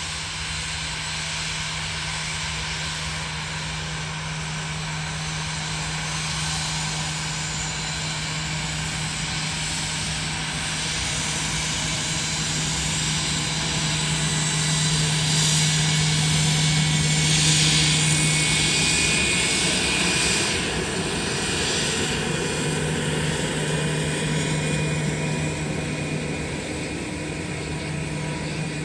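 Cessna 750 Citation X's twin rear-mounted Rolls-Royce AE 3007 turbofans at taxi power: a steady jet whine over a low hum. It grows louder as the jet passes, peaks about halfway through, then eases as it turns away.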